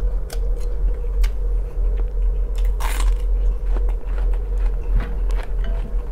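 Close-up eating sounds of a man slurping and chewing instant noodles: wet mouth smacks and clicks, with a longer hissing slurp about three seconds in. A steady low hum runs underneath.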